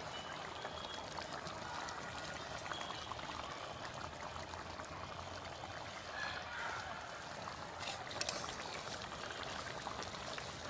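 Fish and potato curry simmering in a steel kadai, a steady bubbling hiss. About eight seconds in, a couple of sharp clicks, a metal spatula knocking against the pan.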